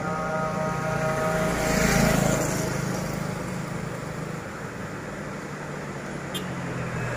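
Roadside motor traffic: a motorbike passes close about two seconds in, then fades, over a steady low hum of engines, and the next vehicle approaches near the end.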